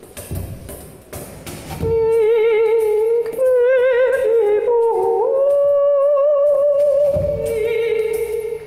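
A man singing long held notes into a handheld microphone, with a wide, wobbling vibrato; the singing comes in about two seconds in after a few soft thumps, and the pitch steps up around the middle before dropping back near the end.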